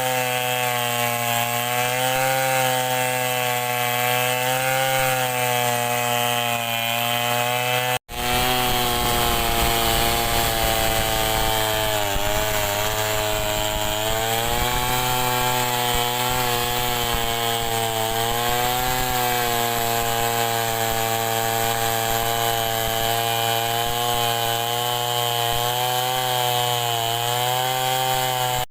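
Homemade Stihl 070-type two-stroke chainsaw running under load as it rips lengthwise through a log, its engine pitch sagging and recovering slowly as the chain bites into the wood. The sound breaks off abruptly about eight seconds in and picks straight up again.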